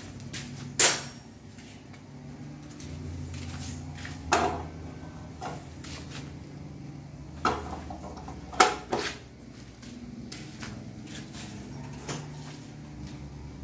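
Metal tools and parts clinking and knocking against the buggy's steel frame and engine during hand work, about half a dozen sharp clinks with gaps between them. A low steady hum runs underneath.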